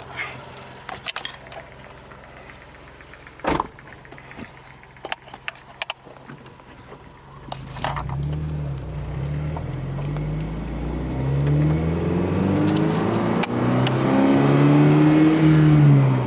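Car engine, plausibly the 2022 Subaru BRZ's 2.4-litre flat-four, at first a low steady hum under a few sharp clicks and knocks. About halfway through it pulls away, its note rising and dropping several times and growing louder.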